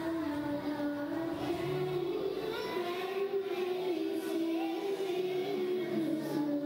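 A group of young girls singing an ilahi, a Turkish Islamic hymn, together in unison, the melody moving in held steps.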